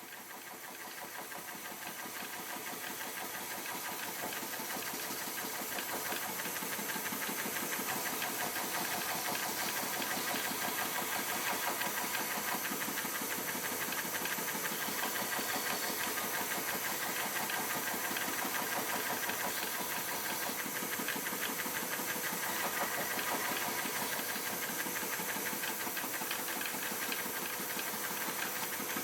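A woodworking power tool running steadily, with a fast, even pulsing; it grows louder over the first few seconds.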